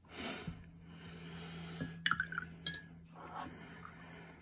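Quiet handling sounds at a miniature-painting desk: a soft rustle at the start, then a few light clicks and taps about two seconds in, over a steady low hum.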